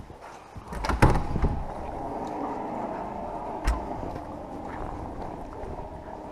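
A door knocks and bangs shut about a second in, with another single knock a few seconds later. Behind it runs a steady rushing noise.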